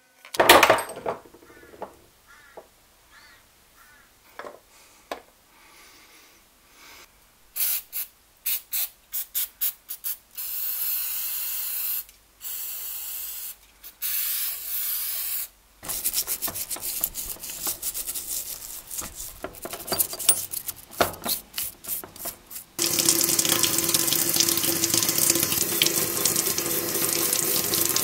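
Metal parts of a Stanley 803 hand drill clicking as they are set down and moved about, then hissing stretches of cleaning liquid spraying over the parts in a plastic tub, then a stiff brush scrubbing the parts. The scrubbing is loudest and steadiest over the last five seconds.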